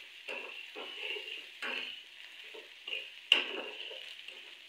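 A spatula stirring garlic paste and fried onions in hot oil in a kadai: repeated short scrapes against the pan, with one sharp knock about three seconds in, over a light sizzle.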